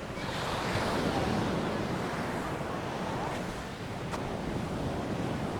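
Mediterranean sea waves breaking and washing up the beach, with wind on the microphone. The surge swells sharply at the start and is loudest about a second in.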